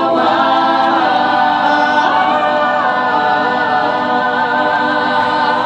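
Mixed college choir of men's and women's voices singing a cappella, moving through a chord change about a second in and then holding a long chord that stops near the end.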